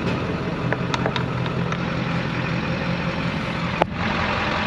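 Diesel truck engine idling with a steady low hum, with a few light clicks and one sharper click near the end.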